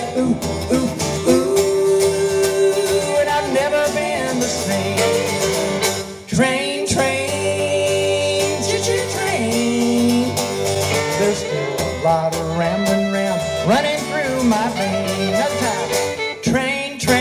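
Live acoustic country music: a fiddle and an acoustic guitar playing together, with singing.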